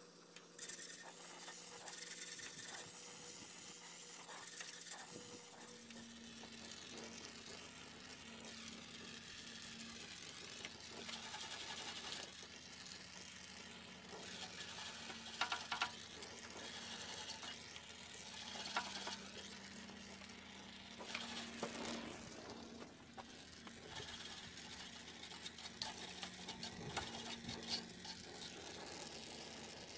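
Gas torch flame hissing against a brass radiator tank while the acid flux on the hot metal sizzles, with scattered crackles. This is the acid being heated to lift corrosion off the brass before soldering.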